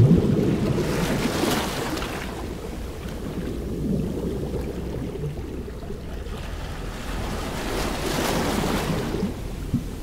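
Ocean surf washing steadily, with one wave swelling and breaking about a second and a half in and another near the end.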